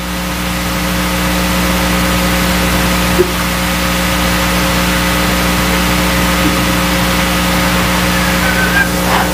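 Steady electrical hum and hiss on the chamber's open broadcast audio feed, with one small knock about three seconds in.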